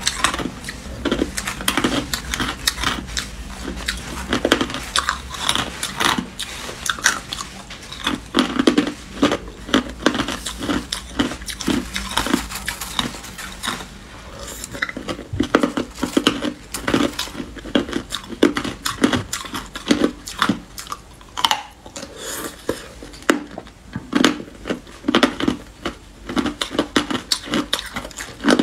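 Hard clear ice being bitten and chewed close to the microphone: continuous irregular crunching and cracking as the ice breaks between the teeth.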